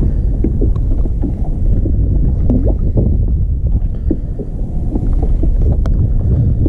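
Wind buffeting the camera microphone in a steady low rumble, with scattered small clicks and knocks as a fish is handled and unhooked.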